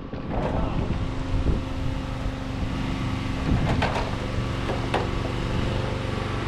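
An engine running steadily at an even speed, with wind rumbling on the microphone. A couple of faint knocks come near the middle.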